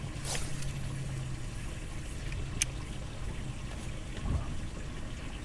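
Boat livewell with its pump running in a steady low hum and water trickling in. A single sharp click comes about two and a half seconds in.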